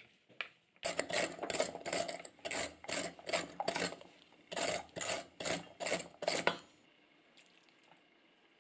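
A run of short rasping strokes, something being scraped or rubbed over and over, about two or three strokes a second with a brief pause midway, stopping a couple of seconds before the end.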